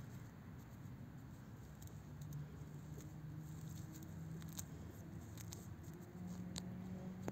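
Two hedgehogs jostling in dry grass: irregular rustling with scattered sharp clicks and ticks, the clearest ones in the second half, over a low steady hum.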